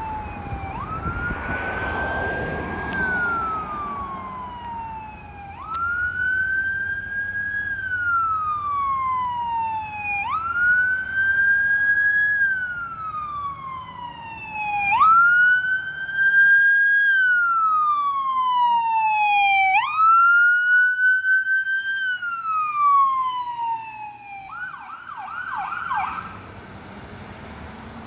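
Ambulance siren sounding a slow wail, about five cycles that each rise quickly and then fall slowly, loudest midway as the ambulance passes. Near the end it switches to a fast yelp for a couple of seconds, then cuts off.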